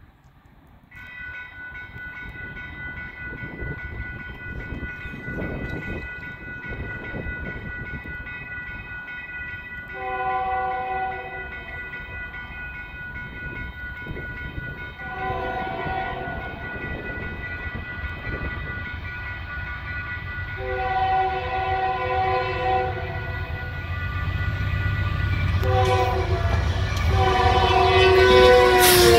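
Grade-crossing bell ringing steadily from about a second in, while an approaching Union Pacific GE C44ACM freight locomotive sounds its Nathan K3HA air horn, whose No. 1 chime is dead, in five blasts. The horn blasts get louder as the train nears, the fourth is short, and the last is held as the locomotive passes, falling in pitch, over the rising rumble of the engine.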